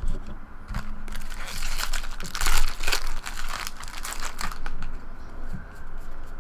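Foil trading-card pack wrapper being torn open and crinkled by hand, a dense crackle loudest a couple of seconds in, with a few light taps of cards being handled.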